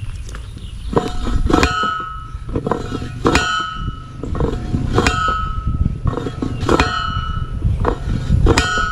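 Steel post driver pounding the top of a pointed wooden fence post, five ringing metallic clangs about a second and a half apart, each with a softer knock just before it as the driver is lifted and dropped. The post is going down only about half an inch a hit in firm ground.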